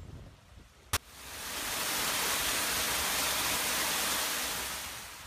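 Water rushing through an open paddle in a wooden canal lock gate and splashing into the lock chamber as the lock fills: a steady rush that fades in just after a sharp click about a second in, and fades away near the end.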